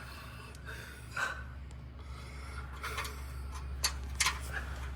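Rubbing and a few sharp clicks of hands working a urethane exhaust hanger onto its metal bracket, over a steady low hum.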